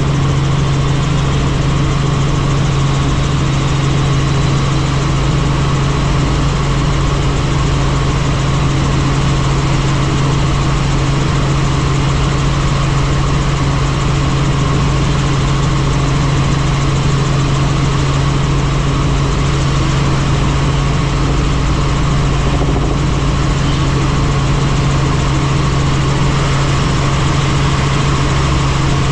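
Helicopter in flight: a steady, loud drone of turbine and rotor noise with a strong low hum that does not change.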